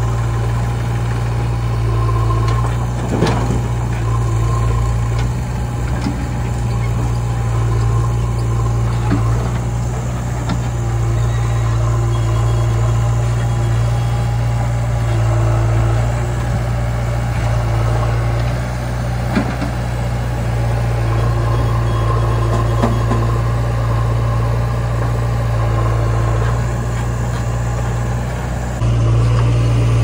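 Diesel engines of a JCB 3DX backhoe loader and a Mahindra tractor running steadily while the backhoe loads soil into the tractor's trolley, with a few short knocks.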